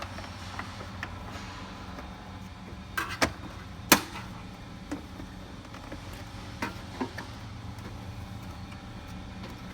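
Plastic lid of a small countertop ice maker being fitted and pressed into place: scattered clicks and knocks of plastic on plastic, the loudest a sharp knock about four seconds in, over a steady low hum.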